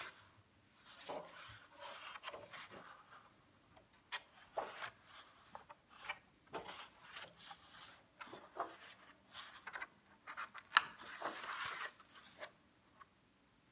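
Pages of a large book being turned one after another by hand: paper rustling and sliding under the hand, with a short, sharp page flick about eleven seconds in as the loudest moment.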